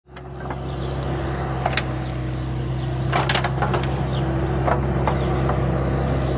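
A mini skid steer's engine running steadily, with a scattering of sharp clanks and knocks over it as it scrapes up old hay.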